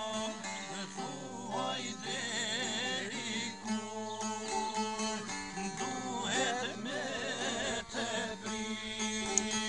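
Two plucked long-necked lutes playing an Albanian folk song, with a man's voice singing over them in wavering, ornamented phrases.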